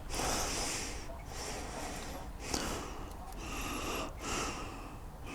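A person breathing close to the microphone, several breaths in and out about a second each.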